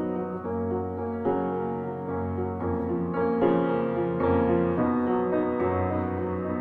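Background music led by piano, its chords and notes changing every half second or so.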